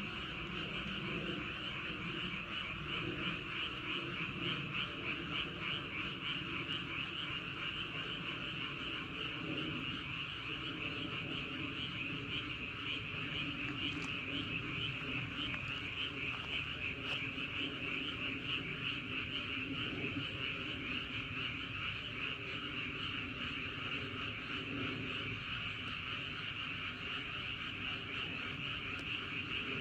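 A dense, unbroken chorus of many frogs croaking, rapid overlapping calls blending into a steady din.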